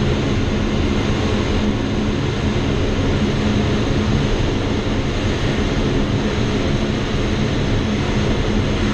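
Steady rushing airflow around the canopy of an engineless Schweizer SGS 1-26E glider as it lands and rolls out on the runway, with a steady low hum under it.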